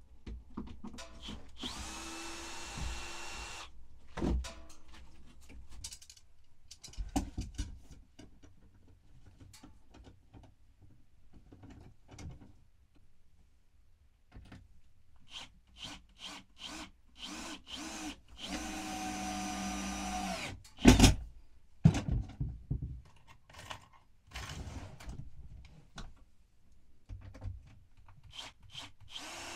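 Cordless power drill running in a few bursts of a second or two, with scattered knocks and clicks in between.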